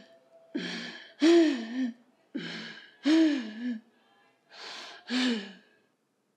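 A person gasping for breath three times, each gasp a rasping in-breath followed by a louder voiced gasp, about two seconds apart, stopping shortly before the end.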